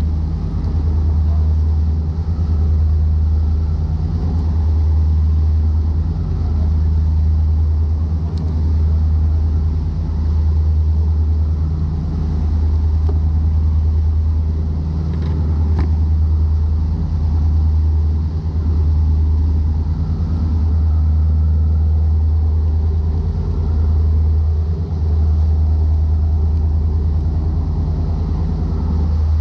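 Charter fishing boat's engine running steadily under way: a loud, low drone that holds its pitch, with a faint wash of wind and water over it.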